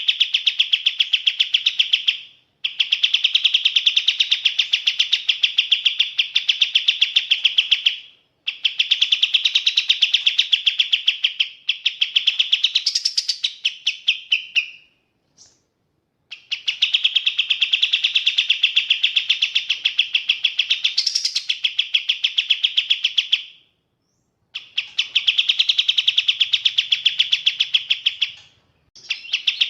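Kapas tembak songbird singing loud, long runs of rapid repeated chattering notes, each run lasting several seconds, with short pauses between runs.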